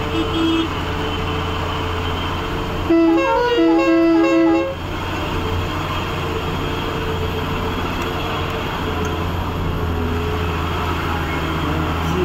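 Truck engine running steadily under load on an uphill climb. About three seconds in, a loud musical horn plays a short tune of stepped notes for under two seconds.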